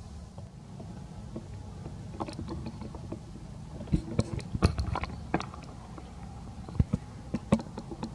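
Baby macaque biting and chewing a piece of apple: sharp crunchy clicks, coming in clusters about four and seven seconds in, over a steady low background rumble.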